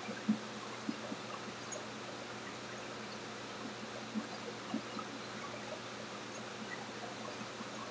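Steady rushing noise of a commercial kitchen's exhaust hood and gas burners, with a few soft knocks from octopus being handled on a cutting board, the loudest just after the start.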